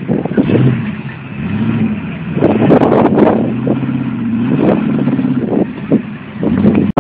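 Rock crawler's engine revving up and down in repeated bursts as the buggy climbs over boulders, loudest and roughest about two and a half to three and a half seconds in.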